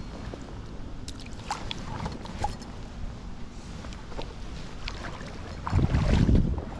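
Creek water sloshing and splashing, with scattered small clicks, and a louder low rush about six seconds in.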